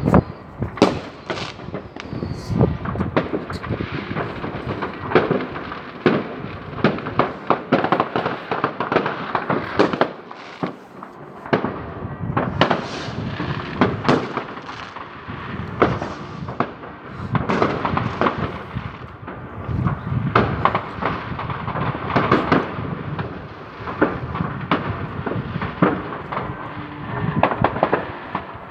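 New Year's Eve fireworks and firecrackers going off continuously, many bangs overlapping with crackling, easing off briefly about ten seconds in before picking up again.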